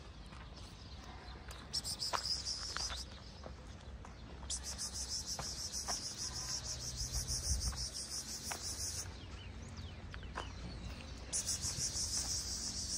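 Insects trilling outdoors in three bouts of a few seconds each: a high, rapidly pulsing buzz that starts and stops abruptly. A few faint footsteps on dirt fall in between.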